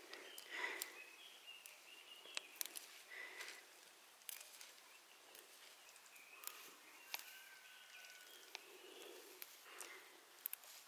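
Quiet rural outdoor ambience: faint bird chirps, with scattered sharp clicks and light rustling.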